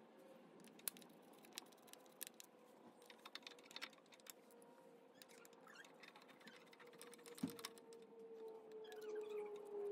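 Faint, scattered light clicks and ticks of a screwdriver and small screws on the metal stator plate of a Honda CT70, with one low knock about seven seconds in. A steady hum, slowly dropping in pitch, grows louder near the end.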